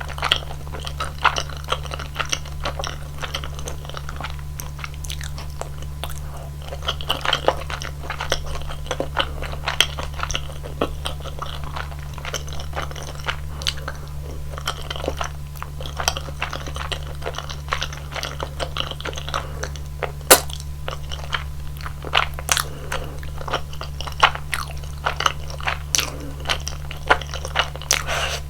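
Close-miked eating sounds of chewy rosé tteokbokki rice cakes: sticky, wet chewing and biting with many short, sharp clicks scattered throughout, over a steady low hum.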